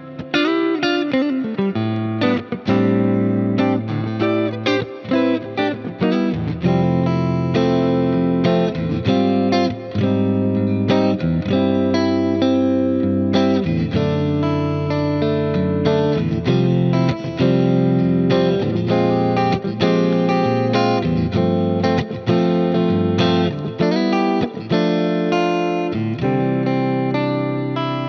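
Fender American Ultra Luxe Stratocaster electric guitar played through an amp-simulator plugin with delay and reverb, over a backing track. Quick runs of picked notes for the first six seconds or so, then longer ringing notes and phrases.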